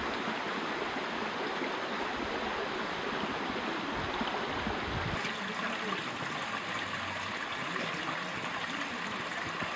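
Mountain stream running over rocks: a steady rushing of water, with a brief low rumble about four seconds in.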